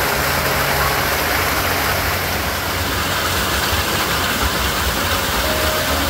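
Small mountain stream cascading over rocks, a steady loud rush of water.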